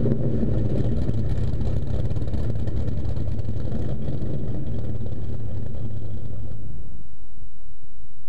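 Dodge Ram SRT-10's 8.3-litre V10 running at a steady, even pitch, its sound fading away near the end.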